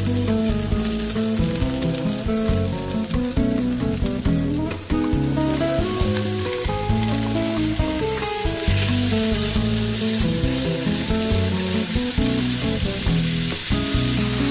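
Sliced onions sizzling as they fry in a hot double-sided pan, stirred with a silicone spatula; minced beef goes in partway through and the sizzle gets louder. Background music with held, changing notes plays underneath.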